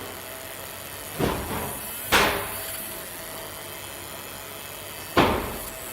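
Three sharp knocks, a second apart and then three seconds later, the last two louder, over a steady low hum.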